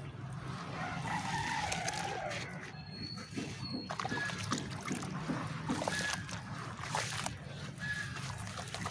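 Dry red clay dirt crumbling in water: a steady fizzing crackle of many small clicks, with light sloshing.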